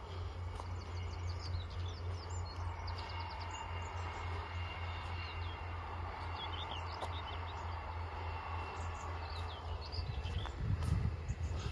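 Small birds chirping in short, repeated calls over a steady low rumble, which grows louder near the end.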